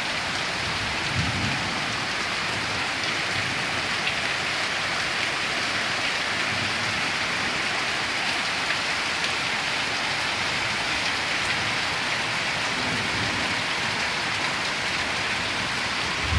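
Heavy downpour of thunderstorm rain: a steady, unbroken hiss of rain pouring down on the ground and foliage, with no let-up.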